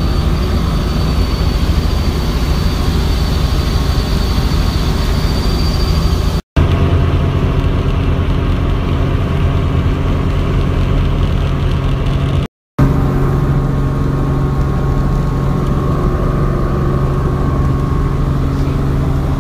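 Helicopter engine and rotor drone heard from inside the cabin, loud and steady with a low hum, broken by two brief cuts.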